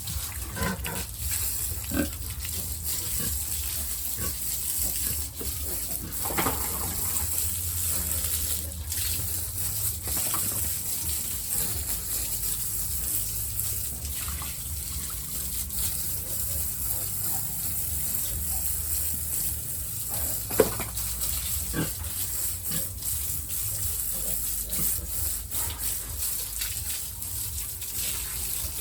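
Pigs grunting now and then over a steady hiss and low hum.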